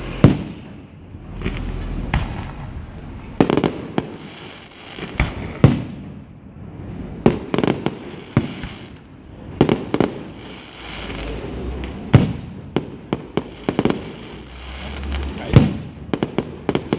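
Aerial fireworks display: shells bursting one after another in an irregular barrage of sharp bangs, some in quick clusters, with the rumble of the bursts carrying on between them.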